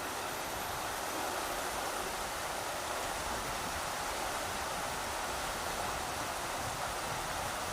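Rushing river water: a steady, even rush of flowing water.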